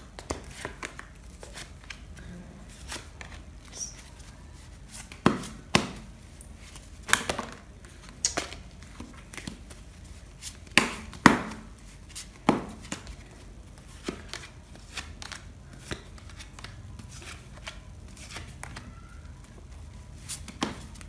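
Tarot cards being dealt one at a time from the hand onto piles on a cloth-covered table: an irregular string of sharp card snaps and taps, the loudest bunched in the middle.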